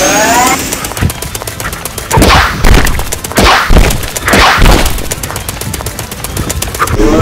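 Added fight sound effects: a rapid string of sharp shots like machine-gun fire, several a second, broken by three or four loud whooshes, with a short rising electronic tone at the start and again near the end.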